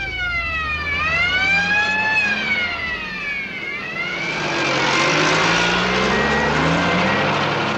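Emergency vehicle sirens wailing, rising and falling, over engine rumble as airport crash vehicles move out. After about four seconds a loud rushing noise takes over, then everything cuts off abruptly.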